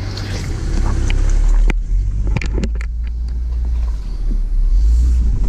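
Truck engine rumbling low and steady while crawling over a rocky trail section, with several sharp knocks and clunks from the truck's body and suspension working over the rocks, the first about two seconds in and a cluster shortly after.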